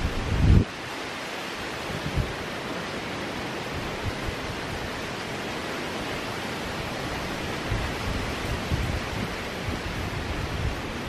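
Shallow river water flowing, a steady rushing hiss. A loud low thump about half a second in, and a few softer low bumps later on.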